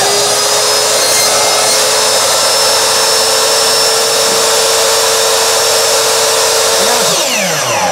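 Electric compound miter saw running at full speed, its blade cutting a red bell pepper and the wooden stick it is skewered on. The motor holds one steady whine, then winds down about seven seconds in.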